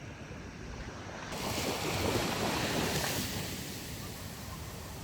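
Ocean surf with wind on the microphone: a wave breaking and washing in, swelling about a second in and easing off.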